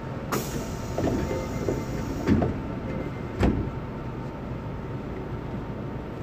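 Osaka Metro 66 series subway car standing at a station with its sliding doors working: a high hiss for about two seconds, then two heavy thuds a second apart over the car's low steady hum.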